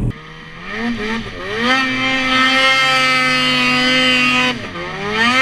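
Snowmobile's two-stroke engine, a Ski-Doo 600 RS, revving up over a couple of seconds, holding high revs steadily under load, then dropping off near the end before picking up again.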